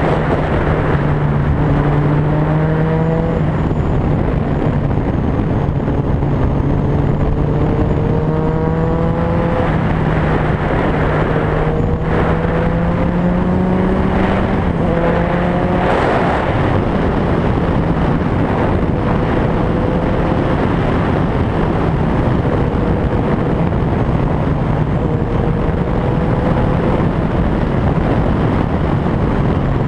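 Motorcycle engine accelerating along the road, its pitch rising several times and dropping back as it shifts up, over steady wind and road noise.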